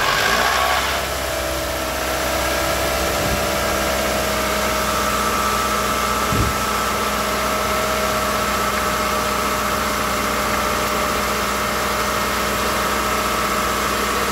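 Toyota 2AR-FE 2.5 L four-cylinder engine idling just after start-up, on its first run after a balance shaft replacement. The idle settles down over the first couple of seconds and then holds steady, with a single low thump about six seconds in.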